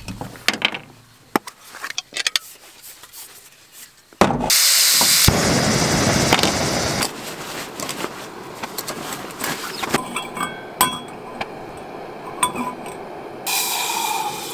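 Small backpacking stove on a Coleman butane-propane canister. A few clicks and clinks come as it is set up, then about four seconds in the gas comes on with a sudden loud hiss, and the lit burner settles into a steady hiss under more clicks of handled gear. Near the end, water pours into a steel mug over the flame.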